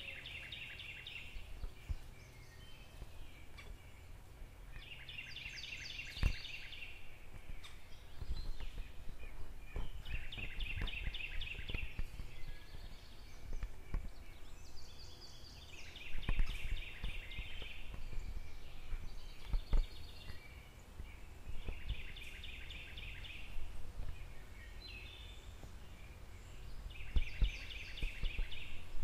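An animal's high, rapidly pulsed trill, repeated about every five seconds, each trill lasting about a second and a half, over a low rumble and scattered thumps.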